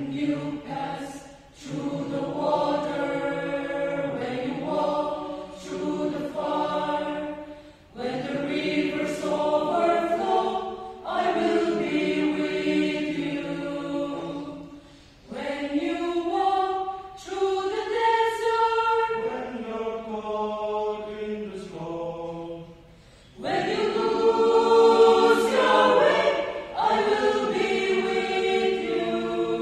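Mixed choir of men and women singing a gospel song, phrase by phrase with short breaks between phrases, swelling loudest near the end.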